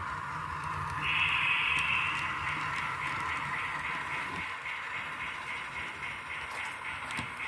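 Model railroad locomotive sound on an operating layout: a steady high hiss and hum, with a ringing tone that comes in about a second in and then turns into a regular pulse about three times a second.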